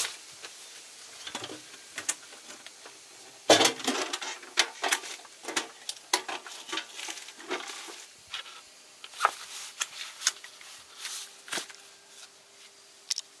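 Close-up handling sounds: clothing rustling and camp gear being shifted in short, irregular bursts of rustles, clicks and knocks, with one sharper knock about three and a half seconds in. Near the end a vacuum-sealed plastic packet of meat is picked up and crinkles.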